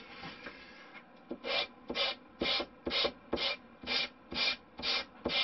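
Sanding block with 180-grit paper rubbing along a balsa-wood fuselage nose in short, even strokes, about two a second, starting about a second in.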